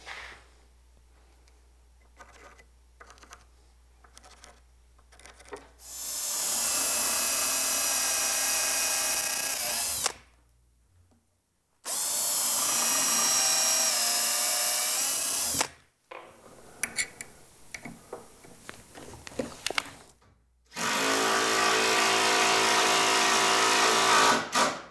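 Cordless drill running in three steady bursts of about four seconds each, boring pilot holes into plywood and driving screws through a swivel caster's steel mounting plate. Light taps and clicks from handling the parts come before and between the bursts.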